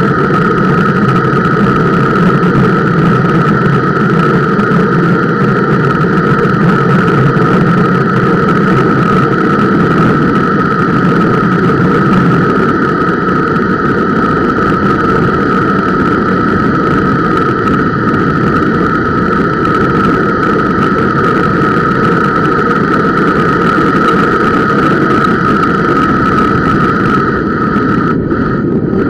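Bicycle disc brakes dragging on a steep descent: the rushing of semi-metallic pads on the rotor with a steady whine, the squeal that the rider blames on the Centerlock rotor mounting, carried loudly into the camera mount as structure-borne noise. A low rumble of rolling noise runs underneath.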